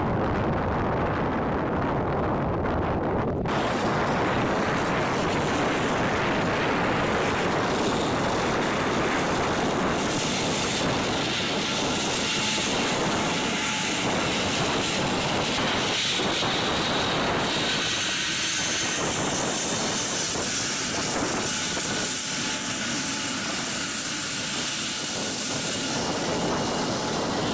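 Twin TF34 turbofan engines of A-10 Thunderbolt II jets running as the aircraft taxi: a steady jet rush with a high whine. The whine comes in strongly after about three seconds and grows sharper about ten seconds in.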